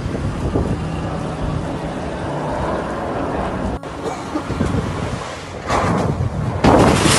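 Hurricane-force wind buffeting the phone's microphone: a steady rumbling noise, then heavier gusts in the second half, with a sudden loud blast near the end.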